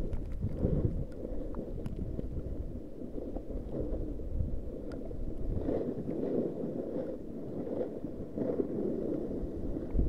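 Wind buffeting the microphone: a low, fluctuating rumble with a few faint ticks.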